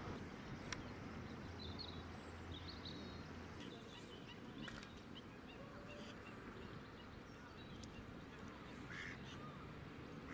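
Faint lakeside ambience with distant waterfowl calls and a few short high bird chirps, plus the odd small click.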